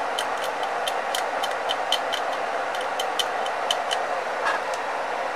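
Rapid, irregular small sharp clicks, several a second, that stop about four seconds in, over a steady hiss.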